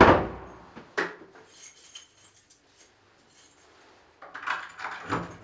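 Working at a front door: a heavy thump right at the start, a sharp click about a second later, then faint metallic clinking and jingling, with more knocking and rustling near the end.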